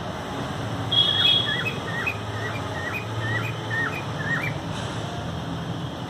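Cockatiel calling: a short steady whistle about a second in, then a quick run of about nine short rising chirps, roughly three a second, over a low steady hum.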